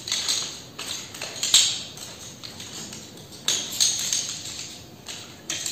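Aluminium tube sections of a folding camp chair's frame clacking and clinking against each other as they are folded into a bundle: a handful of sharp clacks, the loudest about a second and a half in.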